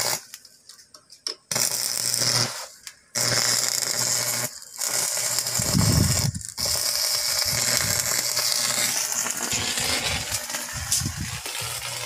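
Stick arc welding: the welding arc crackles and hisses steadily over a faint electrical hum, dropping out briefly three times as the arc breaks and is struck again. A few light ticks come before the first strike.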